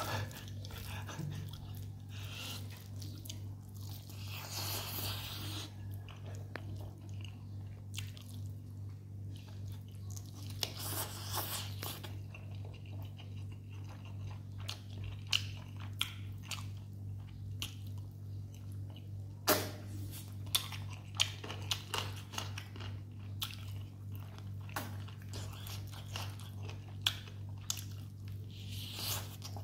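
A person eating close to the microphone: chewing and biting into a chicken leg and mouthfuls of rice eaten by hand, with crunches and sharp mouth clicks scattered throughout. A steady low hum runs underneath.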